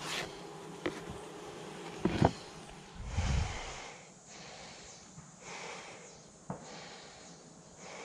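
Honeybees buzzing around an opened hive, with plastic knocks from handling the hive's slatted bottom drawer about two seconds in and a brief low thump just after.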